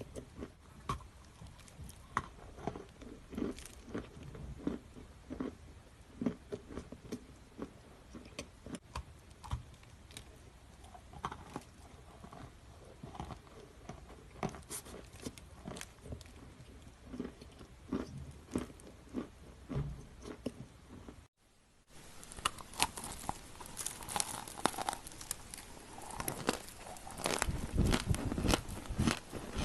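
Close-miked biting and chewing of an edible chalk cookie: irregular dry crunches and crackles. There is a brief break about two-thirds of the way in, after which the crunching is louder and denser.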